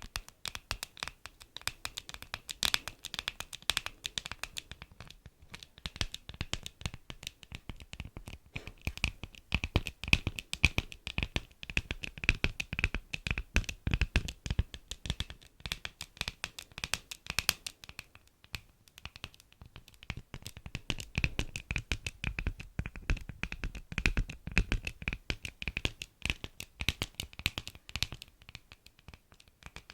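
Beeswax food wrap crinkled and rubbed by hand: a dense, continuous crackling with sharp crinkly snaps, slightly quieter for a moment around five seconds in.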